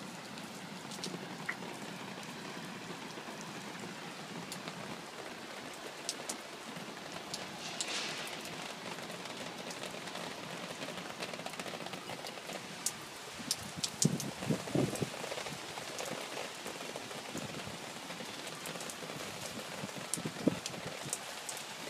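Steady rain falling, an even hiss with scattered sharp ticks of drops striking nearby. A few louder knocks come about two thirds through and once more near the end.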